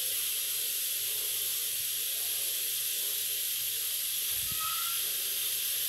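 Steady hiss of a pressure cooker cooking beans on the stove, with a soft low thump about four and a half seconds in.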